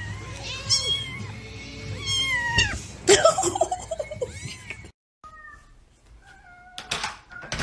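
Domestic cats meowing over and over, a series of meows that bend up and down in pitch, cut off abruptly about five seconds in, with quieter sounds after and louder meowing again near the end.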